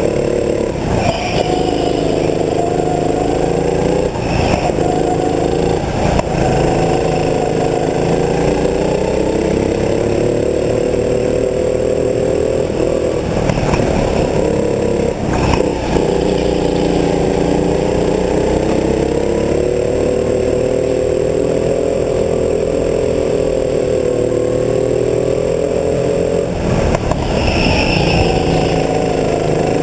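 Go-kart engine running at full effort, its pitch climbing and dipping over and over as the throttle is opened and eased through the corners. A few brief knocks cut across it.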